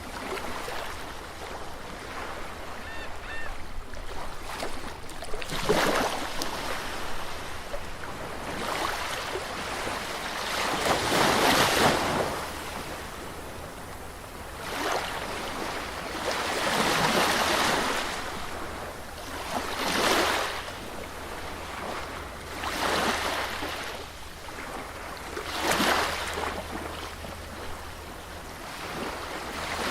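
Sea waves washing onto a beach, each surge of surf swelling and falling away about every three seconds.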